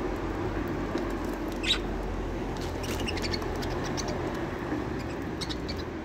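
Budgerigars giving short, high chirps: one loud chirp about two seconds in, a quick run of chirps through the middle, and a few more near the end, over a steady low hum.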